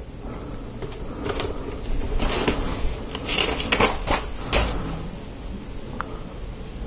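Plastic Lego Technic parts clicking and rattling as they are handled and pushed onto axles, a handful of short clicks spread through, with a small tick near the end.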